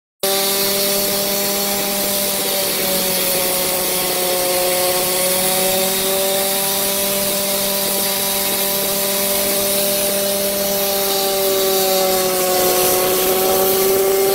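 Small single-seat ultralight helicopter's engine and rotor running, a steady motor drone with a slight waver in pitch.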